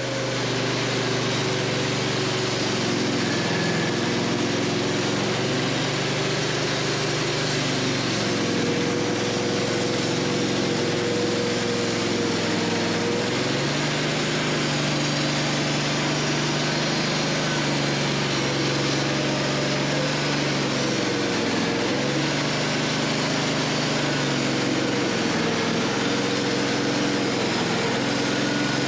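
Wood-Mizer LT15 portable band sawmill running, sawing through a hard maple log: a steady engine note under the hiss of the band blade in the wood. The engine pitch steps up about halfway through and dips briefly near two-thirds of the way, as the load on the saw changes.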